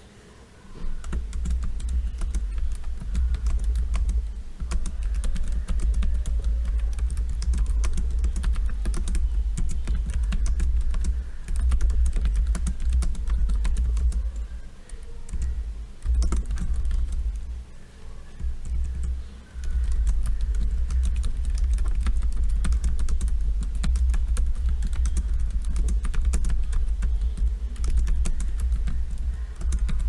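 Fast touch typing on a Logitech K380 Bluetooth keyboard's round scissor-switch keys. It is a dense, quiet clatter of key clicks that pauses briefly twice about halfway through.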